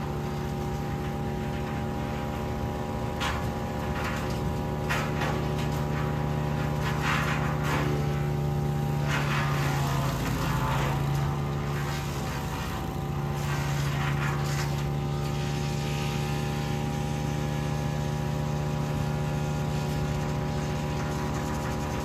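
Petrol engine of a towable wood chipper running steadily at working speed, with repeated bursts of cracking and crunching as branches are fed in and chipped, the longest about halfway through.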